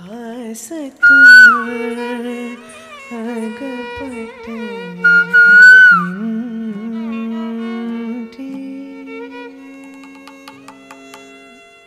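Carnatic music from a live ensemble: a flute plays gliding, ornamented phrases, loudest twice, over a lower sustained melodic line. A few light clicks come near the end.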